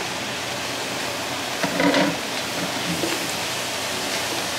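Vegetables and rice sizzling in a hot frying pan, a steady hiss, as they are stir-fried with a wooden spatula; a short louder noise about two seconds in.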